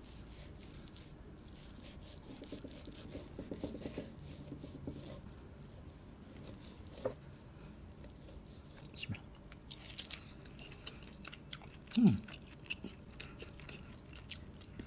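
Serrated knife sawing through crusty roast lamb leg on a wooden cutting board: faint, repeated scraping and crunching strokes. About twelve seconds in there is a brief low vocal sound that falls in pitch.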